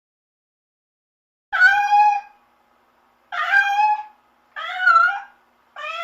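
Cat meowing: four meows in a row starting about a second and a half in, the fourth beginning near the end.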